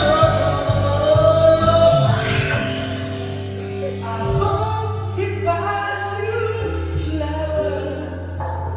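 Music with a singing voice holding drawn-out notes over steady bass notes.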